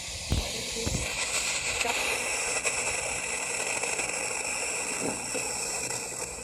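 Steady radio static hiss from an iPod speaker dock's built-in radio, tuned to no station because no antenna is attached. A couple of low knocks sound in the first second.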